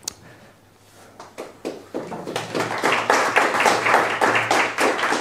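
Small audience applauding: a few scattered claps about a second in build into steady clapping.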